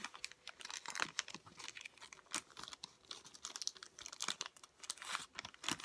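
Clear plastic zip bag crinkling as it is handled, a run of short irregular crackles.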